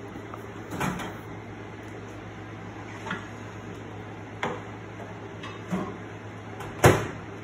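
Countertop microwave being loaded and shut: a handful of separate clicks and knocks from its door and handling, the loudest near the end, over a steady low hum.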